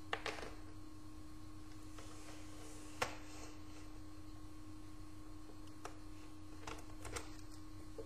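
A few light plastic knocks and clicks as laptop parts are handled and set down on a desk, the loudest about three seconds in, over a steady hum.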